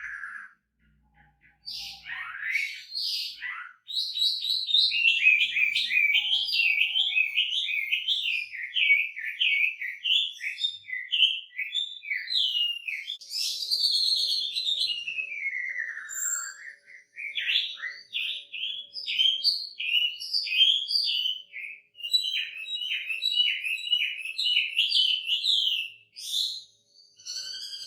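Chinese hwamei singing a loud, varied song. After a few short calls it breaks into long, fast runs of repeated whistled notes, with a long falling whistle about halfway through. This is the rich song full of mimicked phrases that bird keepers prize.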